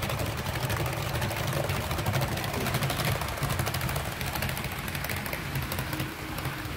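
Brass HO-scale E233 series electric train model running close by on metal track: a fast, dense run of wheel clicks over a low rumble, easing off a little near the end.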